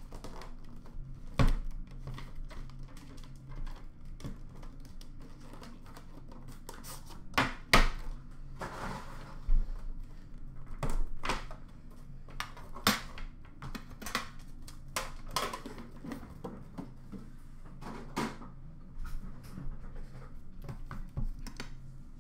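A black trading-card box being opened and handled by hand: irregular clicks, knocks and taps from the box and its lid, with a short sliding rustle about nine seconds in.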